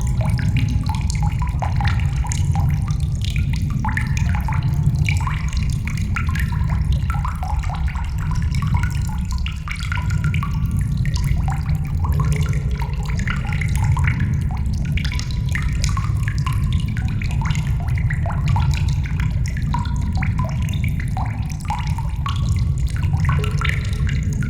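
Water dripping in a cave: many small drops falling at irregular intervals, often overlapping, each a short plink at a different pitch. Underneath runs a steady low rumble.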